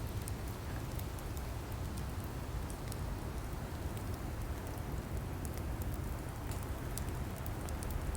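Wood fire of burning logs: a steady low rush with scattered small, sharp crackles and pops.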